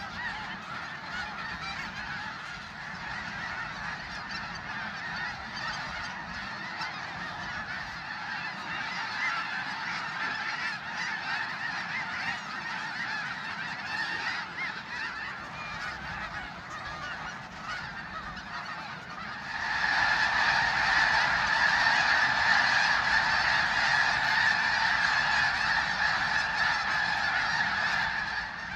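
A large flock of geese honking and calling together in a dense, continuous chorus, which grows suddenly louder about two-thirds of the way through.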